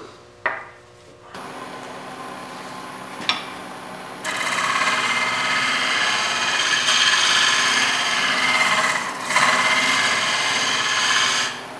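Wood lathe starting and running with a steady hum, then from about four seconds in a scraper cutting into the spinning soft green-wood jam chuck to deepen its recess: a loud, continuous scraping rush that dips briefly near nine seconds and stops just before the end.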